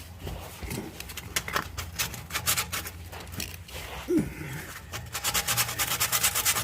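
Sandpaper rubbed by hand over a rusty steel exhaust pipe and clamp. The scraping strokes come irregularly at first, then from about five seconds in turn into quick, even back-and-forth strokes.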